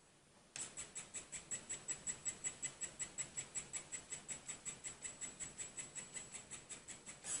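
3D printing pen's filament-feed motor running while it extrudes plastic: a fast, even ticking with a high whine in each tick, about six ticks a second, starting about half a second in.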